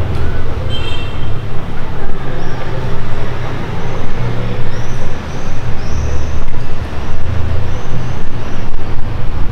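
Street traffic: a steady low rumble of car engines and tyres that swells now and then as vehicles pass. Short high chirps come through the rumble about halfway through.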